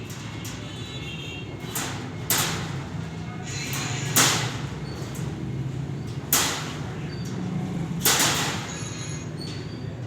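Caged lovebirds chirping faintly, broken by about four sharp rattling strokes, over a steady low hum.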